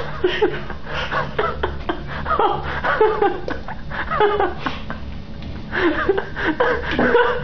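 Several people laughing and giggling, with bits of unclear voice, over a steady low hum.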